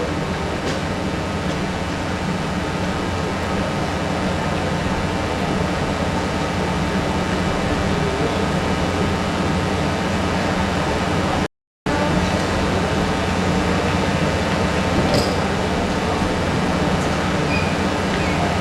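Steady loud rushing noise with a low hum underneath, with no speech or music. It cuts to silence for a moment about twelve seconds in, then carries on unchanged.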